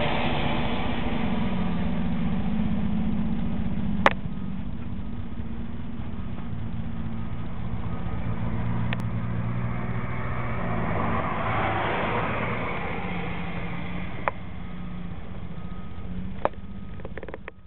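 An engine idling steadily, with a sharp click about four seconds in and a couple of smaller clicks later.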